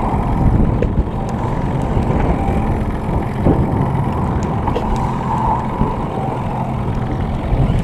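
Small outboard motor running steadily, a constant engine hum under a broad low rumble.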